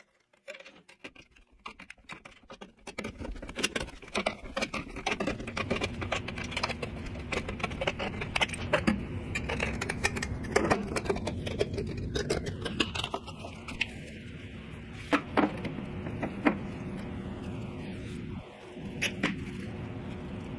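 Hand duct-crimping tool clicking on the end of a galvanized steel duct pipe, then sheet-metal clinks, knocks and scrapes as the crimped end is sleeved into the next duct section, over a steady background hiss.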